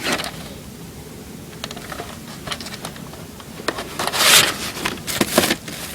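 VHS tapes and plastic cases being handled: a few light clicks, then louder scraping and rubbing about four seconds in and again near the end.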